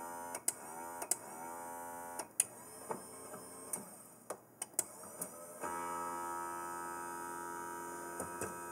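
Salvaged linear actuator's 24-volt motor straining under overload, a steady buzzing whine with many overtones that stops about two seconds in and starts again near six seconds, with sharp clicks scattered throughout. It runs with its overload protection bypassed, and the actuator is breaking.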